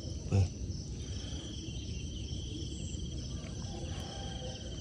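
Insects chirring steadily in a continuous high, finely pulsing trill. A brief voice sound about half a second in.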